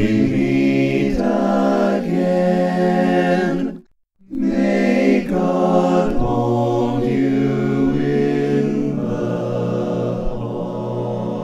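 Barbershop chorus of mixed voices singing a cappella in close harmony, moving through sustained chords. The singing breaks off briefly about four seconds in, then resumes with longer held chords that grow slightly softer toward the end.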